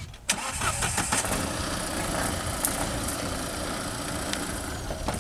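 Tata Safari Storme's diesel engine running steadily at low revs as the SUV creeps down into a trench, with a sharp click just after the start.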